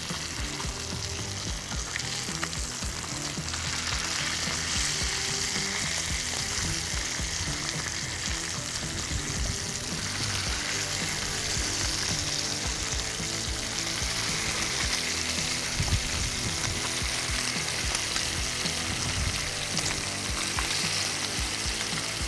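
Homemade bacon and hash browns sizzling steadily on a Blackstone flat-top griddle, an even frying hiss, with a few soft knocks partway through.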